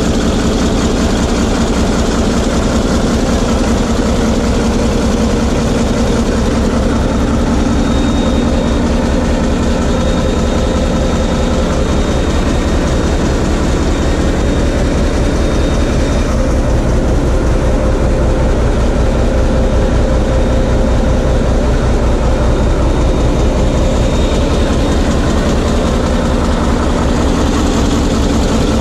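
Diesel engine of a TEM2 shunting locomotive, heard close up through the open engine-room doors, running steadily with an even low chugging pulse. It is being run in after a major overhaul, loaded through the water rheostat.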